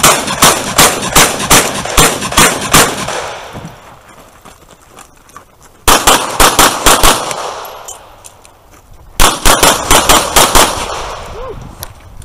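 Pistol fired in three rapid strings during a timed practical-shooting stage: about eight shots, then two strings of about six, each at roughly three shots a second, with gaps of a few seconds between strings while the shooter moves. Each shot rings out with echo off the range.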